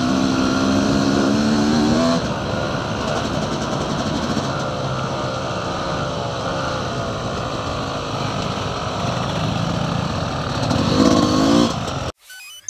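Dirt bike engine running on a trail ride, easing off about two seconds in, then revving up again near the end before the sound cuts off abruptly.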